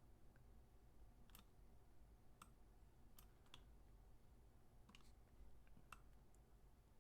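Faint clicks of computer mouse buttons and keys, about eight of them scattered unevenly, over near-silent room tone.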